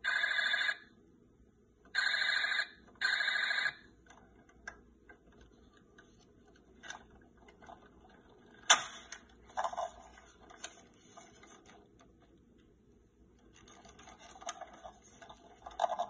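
Buzz Lightyear action figure's electronic sound chip giving three short steady beeps in the first four seconds. After them come plastic clicks and handling of the toy, with one sharp click about nine seconds in.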